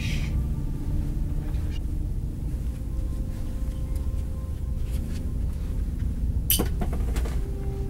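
Low steady rumble under faint held tones of suspenseful background music, with one sharp knock about six and a half seconds in.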